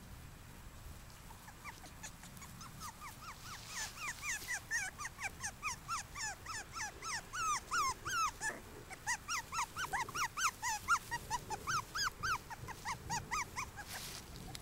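Five-week-old puppies yipping and whining: a rapid string of short, high-pitched squeaks from several pups at once, starting faintly about two seconds in and growing louder.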